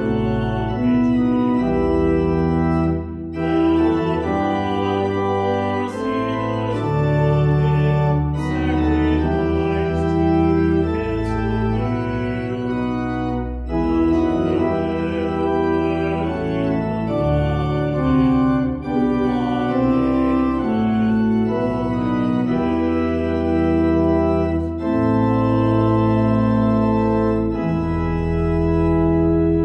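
Organ playing a slow piece in sustained chords, which change every second or two, with short breaks between phrases.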